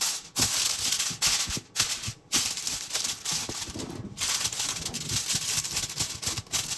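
Aluminum foil crinkling and rustling as it is pulled out and pressed over a lasagna tray, with brief pauses between handlings.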